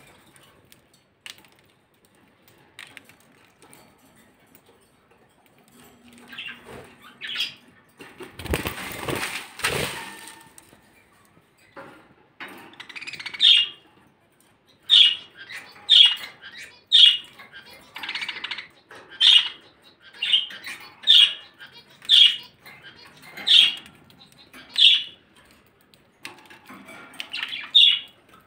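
Caged budgerigars chirping in short calls, roughly one a second for much of the time, with a brief loud rustle about eight seconds in.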